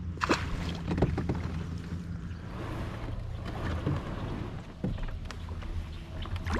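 Scattered light knocks and handling noise on a fishing kayak, over a steady low rumble.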